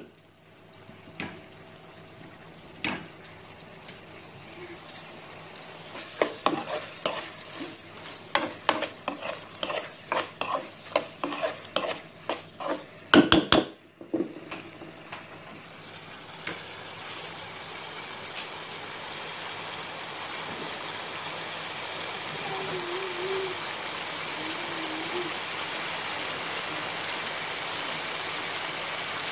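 Spatula stirring and scraping squid rings in sauce around a non-stick wok, a few scattered knocks followed by a quick run of strokes ending in a louder clatter. After that the sauce simmers and sizzles steadily and grows a little louder as it reduces and thickens.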